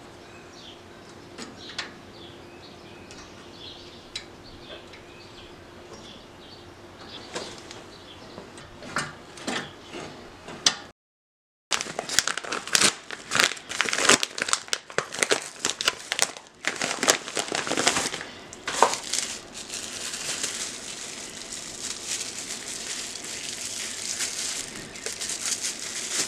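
Faint bird chirps and a few light metal clicks. Then, after a break, a long loud run of crinkling and crackling as a paper padded mailer and bubble wrap are handled to unwrap a part.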